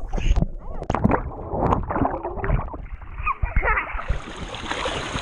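Knocks and rubbing from a handheld GoPro being carried and bumped. About four seconds in, water splashes and sloshes right around it as it goes into an inflatable kiddie pool.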